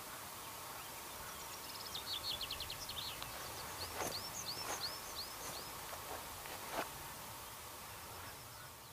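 Birds singing over a steady outdoor hiss: a rapid high trill about two seconds in, then a series of short, hooked whistled notes a little later. A few sharp clicks stand out, the loudest near the end.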